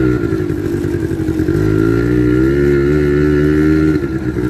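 Quad bike (ATV) engine running close by. It eases off about a quarter-second in, revs up again from about a second and a half in and holds, then eases near the end.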